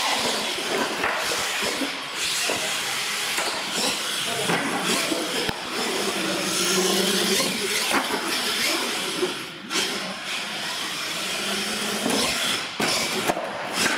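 Radio-controlled monster trucks launching and racing flat out across a concrete floor: a loud, steady whine and hiss of their motors and tyres that starts suddenly.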